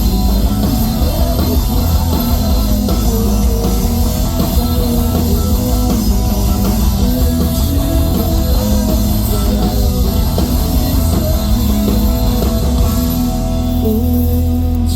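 Emo rock band playing live: a full drum kit and distorted electric guitars, loud and dense. Near the end the drums drop away, leaving held guitar chords ringing.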